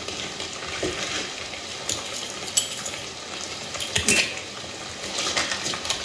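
Movie soundtrack of steady rain with a few sharp clicks and knocks, played through a home theater speaker system and picked up by a phone microphone.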